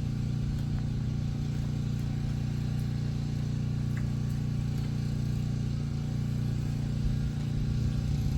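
A steady low engine-like hum, with a few faint clicks over it.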